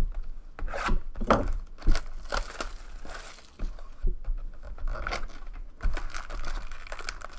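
Packaging crinkling and tearing and cardboard scraping as a sealed hobby box of trading cards is opened by hand, in a run of irregular rustles and knocks.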